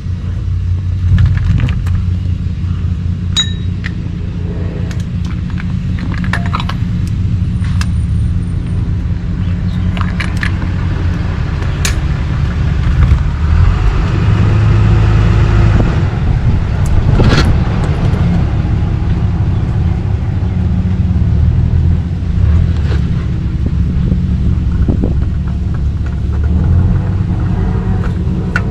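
Scattered metal clinks and knocks of a cup-type oil filter wrench and ratchet working a spin-on oil filter loose, over a steady low rumble.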